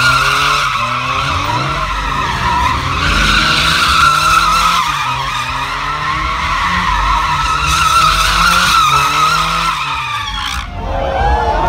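A car spinning donuts: its rear tyres squeal continuously while the engine revs climb and drop again and again. The squeal cuts off suddenly near the end.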